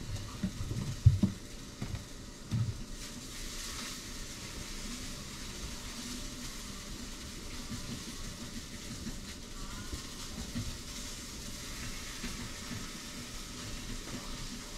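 Steady hiss of background noise, with a few soft low knocks in the first three seconds, the loudest about a second in.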